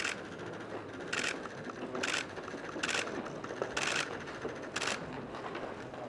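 Camera shutters firing, six sharp clicks spaced about a second apart.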